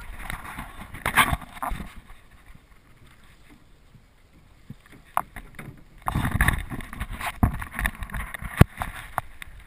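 Handling noise from a GoPro camera being turned over and knocked about in a boat: irregular knocks, bumps and rubs, quieter for a couple of seconds in the middle, then a denser run of knocks near the end.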